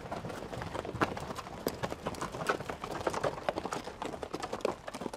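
Several ridden horses walking, their hooves clopping in an uneven, overlapping rhythm.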